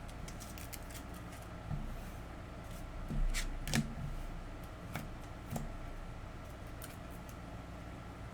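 Trading-card packs and cards being handled: a few short clicks and scrapes, the loudest pair about three to four seconds in.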